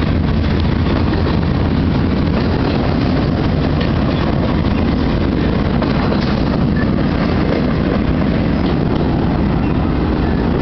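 Freight train cars rolling past over a grade crossing: a steady, loud noise of wheels on rail that holds unchanged throughout.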